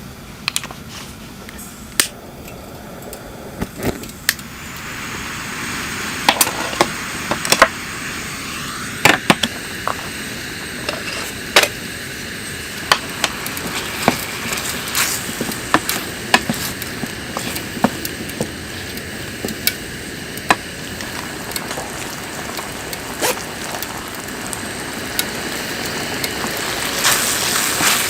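Firewood fire crackling, with frequent sharp irregular pops over a steady hiss that grows louder about four seconds in.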